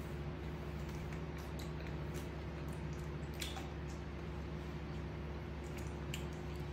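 A monkey eating pieces of fruit: scattered small wet clicks and smacks of chewing, one sharper about halfway through, over a steady low electrical hum.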